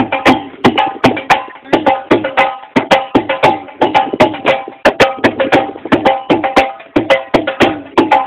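Fast drumming on a dhol: a quick, steady beat of sharp strikes, with a few sustained pitched tones beneath.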